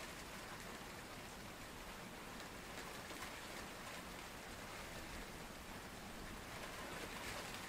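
Steady rain falling on a pond's surface: an even hiss with faint scattered drop ticks.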